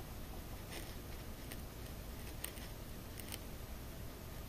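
Faint handling of a small plastic action-figure armor piece between fingers: a few light, scattered clicks and taps.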